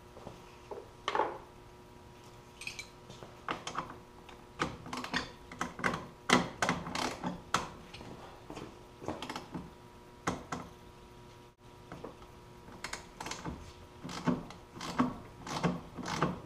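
Irregular clicks, taps and metallic clatter of hand tools and small parts as a cover is taken off at the rear of a snowmobile's track and skid frame.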